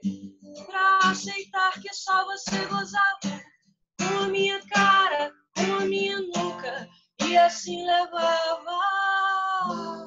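A woman singing to her own strummed acoustic guitar, with a long held note near the end.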